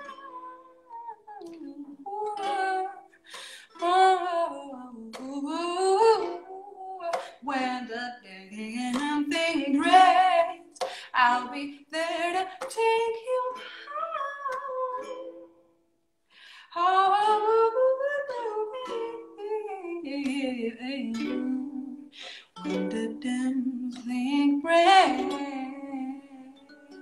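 A woman singing with a ukulele accompanying her. The music stops for a moment just past the middle, then the singing resumes.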